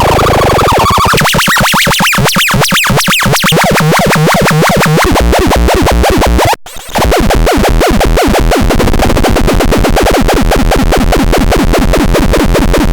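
Electronic synthesizer music: fast, repeating notes sweeping up and down over a pulsing low bass, with a brief dropout about halfway through.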